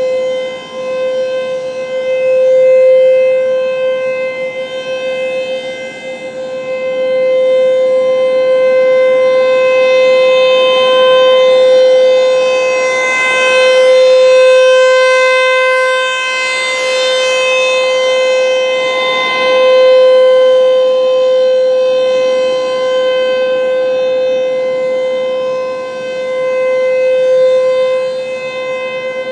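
ASC T-128 electromechanical warning siren sounding the steady alert signal of a full test: one held tone at an unchanging pitch, swelling and fading in loudness every several seconds as the siren head rotates.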